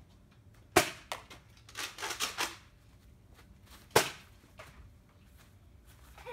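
Nerf dart blaster firing: two sharp shots about three seconds apart, with a run of softer clicks and rattles between them.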